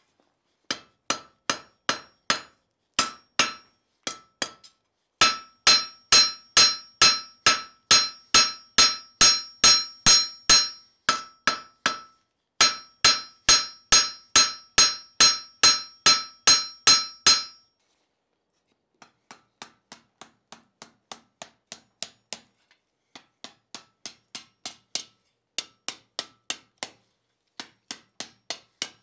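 Hand hammer striking red-hot flat bar stock on a steel anvil, forging it into a scroll. The blows ring with a bright metallic tone and come in steady runs of about two or three a second. After a short pause past the middle they turn lighter and quieter, with less ring.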